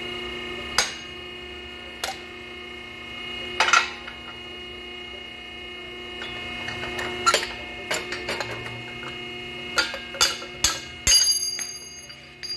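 Sharp metal-on-metal clanks and knocks from a lever-operated ram flange-expanding tool and a steel exhaust collector pipe being worked in it, about a dozen irregularly spaced strikes. A quick cluster near the end leaves the pipe ringing as it is pulled from the tool.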